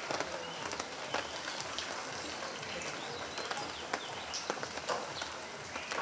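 Outdoor ambience: a steady hiss with scattered sharp clicks and a few short, high bird chirps.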